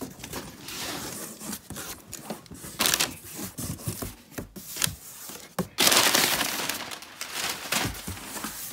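Cardboard shipping box being opened by hand and the crumpled brown packing paper inside rustled and pushed aside: irregular crinkling and scraping, loudest in a long rustle starting about six seconds in.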